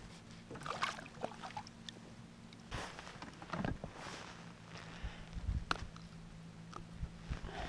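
Scattered light knocks and handling noises as a landed largemouth bass is unhooked at the side of a small boat, over a steady low hum.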